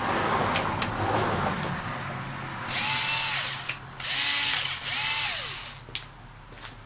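Cordless drill-driver run briefly three times with the bit spinning free, its motor whining up to speed, holding, then winding down each time. A couple of sharp clicks come before it.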